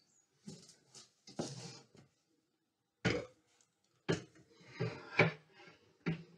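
iOptron CEM120 equatorial mount being lowered and fitted onto the head of a steel pier: a series of separate knocks and clunks of metal on metal with handling noise, the sharpest about three seconds in and the loudest a little after five.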